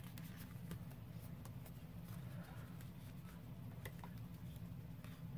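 Faint scattered clicks and light rustling of paper and small craft pieces being handled, over a steady low hum.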